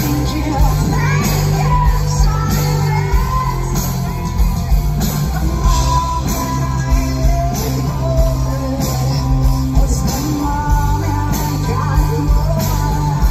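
Live rock band playing with a female lead vocal singing over a steady drum beat and guitar.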